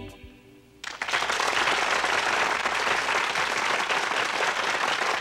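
The final sung chord of a gospel choir dies away, and just under a second in an audience breaks into steady applause.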